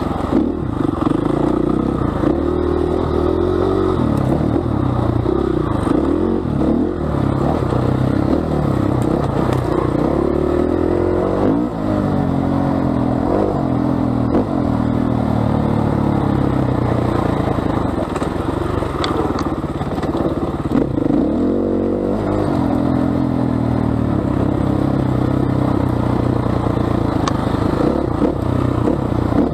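KTM 500 EXC enduro bike's single-cylinder four-stroke engine under riding load, its pitch rising and falling as the throttle is opened and shut, with rattling and clatter from the bike over rough ground.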